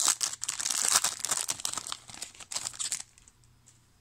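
Foil wrapper of a trading-card pack being torn open and crinkled by hand, a dense crackling that stops about three seconds in.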